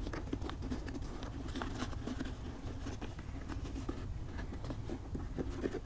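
Faint rustling and light knocks of a paper dust bag being pushed into place inside the plastic tank of a wet-and-dry vacuum, with one sharper knock near the end, over a steady low hum.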